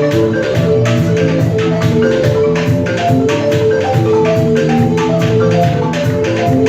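Live West African ensemble music: a balafon plays a quick run of melodic notes over a steady beat of hand percussion.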